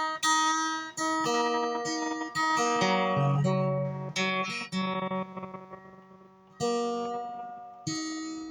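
Guitar strings plucked one at a time and left to ring while being tuned up to dobro tuning, with the pitch of some notes shifting between plucks. The notes fade out about six seconds in, and two more single plucks follow.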